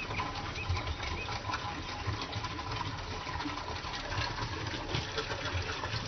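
Steady rush of running stream water in a rocky gorge, with a low uneven rumble underneath.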